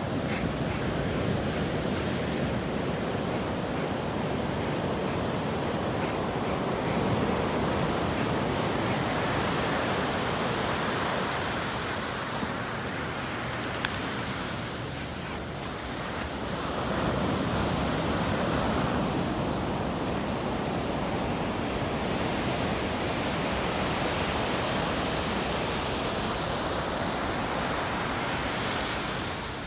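Ocean surf breaking and washing up the beach as a continuous rush, swelling louder twice as waves come in, with some wind on the microphone.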